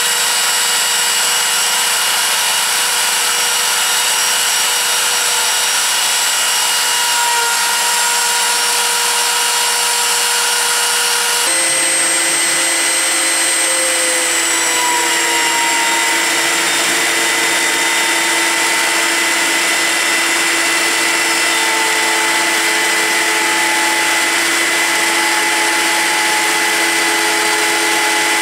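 CNC router spindle running while it cuts wood: a steady machine whine made of several high tones over a constant hiss. The tones shift abruptly about eleven seconds in, then drift down slightly now and then as the load changes.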